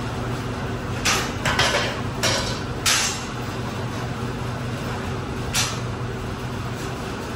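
A wheeled caster dolly clattering as it is set down and positioned on a concrete floor: a quick run of sharp knocks in the first few seconds and one more a little past the middle, over a steady low hum.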